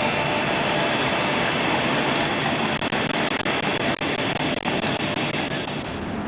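Steady loud rushing street noise, like heavy traffic, with a short run of sharp clops from a carriage horse's hooves on the pavement about halfway through.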